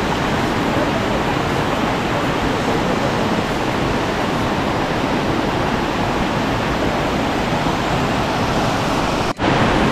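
Steady rush of water from the 110 m second Carbet waterfall and its rocky stream, an even noise with no change, that cuts out for an instant near the end.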